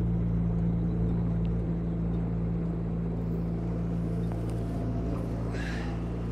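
Yamaha outboard motor on a wooden lake boat running steadily at a constant pitch, under way across open water. A brief hiss comes in near the end.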